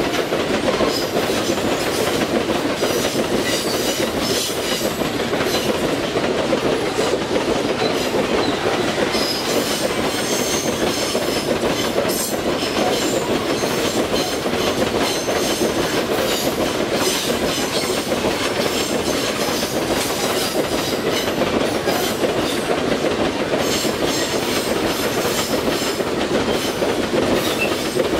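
Loaded iron-ore gondola wagons of a freight train rolling steadily past at close range: a continuous rumble and clatter of steel wheels on the rails, with brief high wheel squeals now and then.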